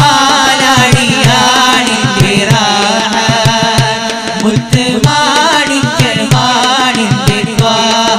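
Male voices singing a Malayalam Islamic devotional song together into microphones, in long ornamented lines, over a steady drum beat.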